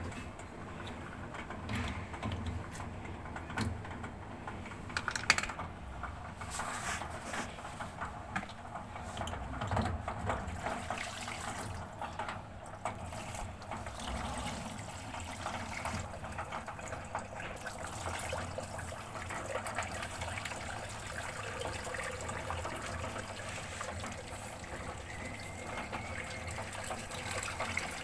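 Water running and splashing, with a steady low hum and scattered clicks and knocks during the first half.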